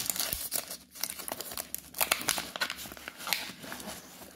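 Thin clear plastic bag crinkling and crackling in a steady run of irregular crackles as hands handle it and open it.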